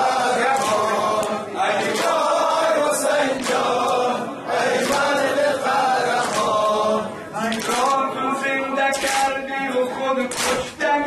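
A male reciter chanting a Persian noha, a Shia mourning lament, with a congregation of men chanting along in chorus. Sharp slaps recur through it, the hands of the mourners beating their chests (matam) in time with the chant.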